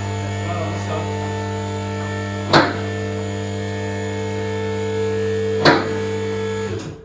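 Electric hydraulic pump of a car hoist running with a steady hum while the lift rises, its safety locks clicking twice, about three seconds apart. The motor cuts off at the very end.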